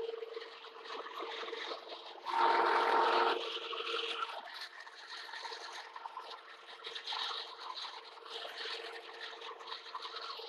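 Steady hum of running machine-shop equipment, with faint clicks and rubbing as a dial indicator on a long arm is handled and set against the steel column. A louder whirring noise lasts about a second, a little over two seconds in.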